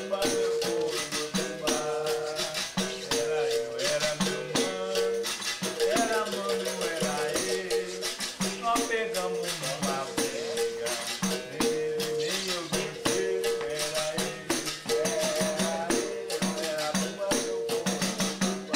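Capoeira roda music: a berimbau repeating a short pattern on a steady note, with a shaken caxixi rattle and singing voices.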